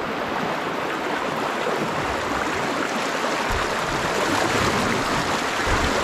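Shallow river water rushing and splashing over rock ledges in a riffle, a steady, loud rush close to the water.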